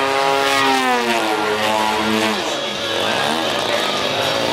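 Engine of a radio-controlled aerobatic airplane in flight. Its pitch holds steady, falls over about a second, then warbles rapidly up and down through the second half.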